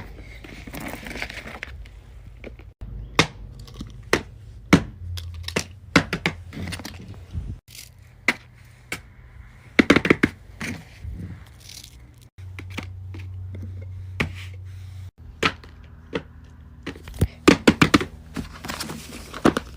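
Small plastic fidget toys being handled: a string of sharp clicks, taps and knocks, thickest around ten seconds in and near the end, over a low steady hum. The sound breaks off abruptly several times.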